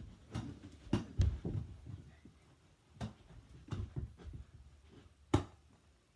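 Scattered thuds and knocks of a ball game in a small room: a ball being thrown, caught and bouncing, and feet on the floor. A sharp knock a little after five seconds is the loudest.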